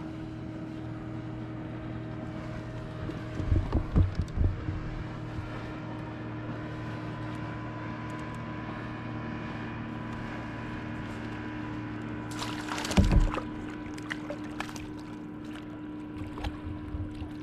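Steady hum of a boat motor running, with a few knocks about four seconds in and a loud splash-like burst a little before the end, then scattered light clicks.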